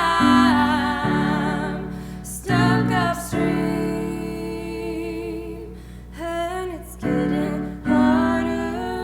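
Pop song cover: a singing voice holding long notes with vibrato over sustained piano chords.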